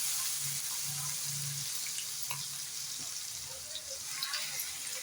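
Chopped onion sizzling as it fries in hot oil with cumin seeds in a pan, a steady sizzle that eases slightly, with a few faint clicks.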